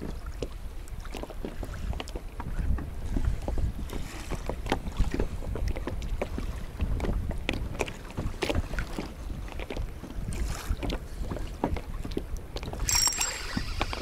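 Wind buffeting the microphone with a low rumble, while small wind-driven waves slap and lap against the hull of an inflatable boat in short, irregular splashes. A steady high hiss with a thin whine comes in near the end.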